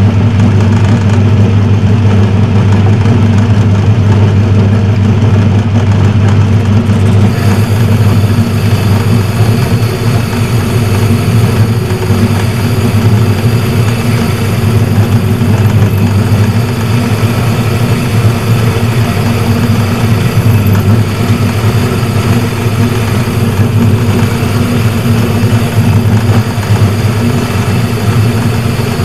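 Metal lathe running steadily with a strong low hum from its motor and drive. About seven seconds in, a brighter hiss joins and continues.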